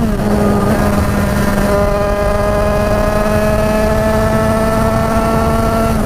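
Big-bore kitted 50cc-class two-stroke motorcycle engine running hard under load at high revs, its pitch held steady and climbing slowly, with wind and road rush underneath.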